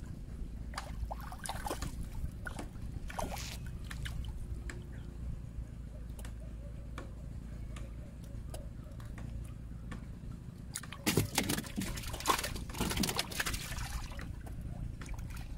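Shallow river water sloshing and trickling as a wading person moves and reaches through it, with small scattered splashes and a louder run of splashing about two-thirds of the way through.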